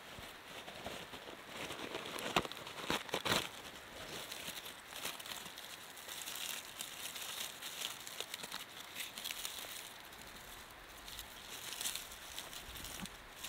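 Hands crumpling and rubbing a handful of dry tinder into a fire-lighting bundle: a crackly, crinkly rustle with a few sharper snaps in the first few seconds.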